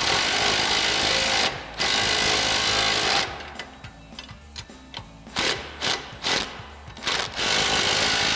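Cordless impact wrench with a 21 mm socket hammering mounting bolts tight. There are two long runs of rapid impacting, then several short bursts as the bolts seat, then another long run near the end.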